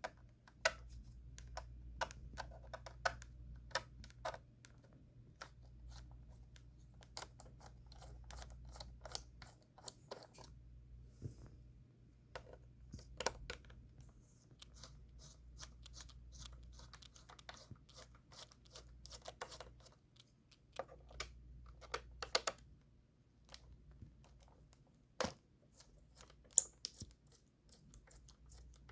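Precision screwdriver working the small screws out of a laptop's base: scattered small clicks and scratches at irregular intervals, over a faint steady low hum.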